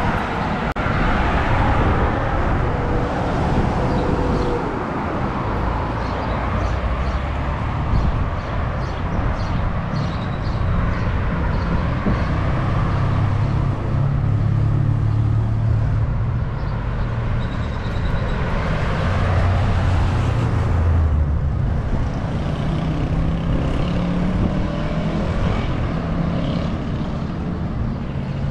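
Street traffic: cars and trucks running and passing by, with a steady low engine hum throughout.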